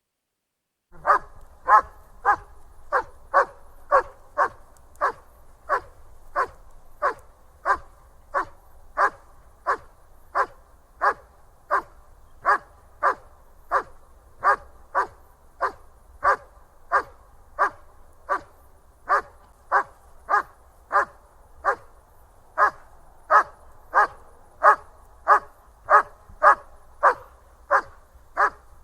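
German Shepherd barking over and over in a steady, fast rhythm, about three barks every two seconds, starting about a second in after silence. A faint low rumble runs underneath.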